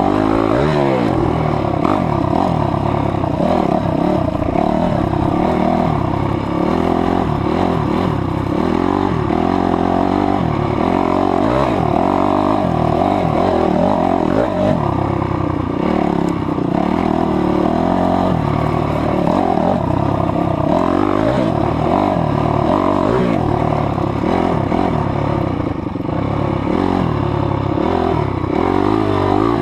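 Honda CRF250X dirt bike's single-cylinder four-stroke engine being ridden, its pitch rising and falling again and again as the throttle is opened and closed.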